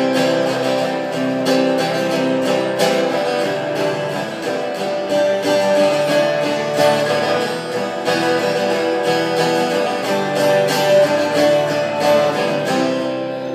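Two acoustic guitars played together, strummed and picked, in an instrumental passage without singing.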